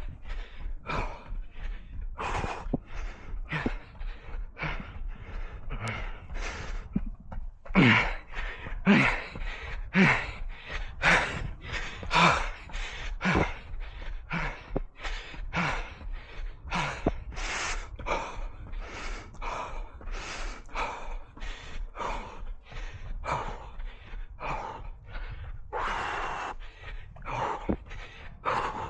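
A runner breathing hard in quick, regular gasps, about one and a half to two breaths a second, the panting of sustained running effort.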